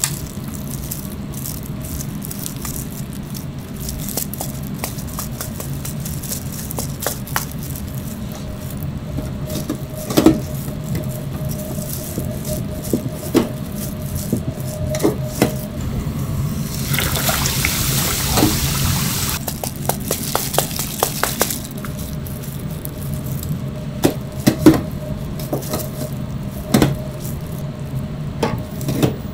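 Gloved hands rustling and pressing fresh breadcrumbs in a stainless steel pan while breading pork cutlets, with a few seconds of louder hissing rustle past the middle. Sharp clacks of a metal skewer against the steel pans come throughout, loudest twice, over a steady kitchen hum.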